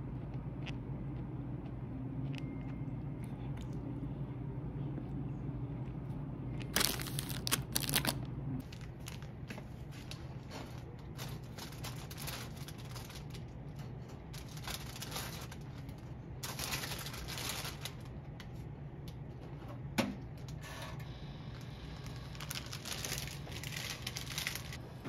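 Intermittent rustling of something being handled, over a steady low hum. There is a louder flurry of it about seven seconds in, and a single sharp knock about twenty seconds in.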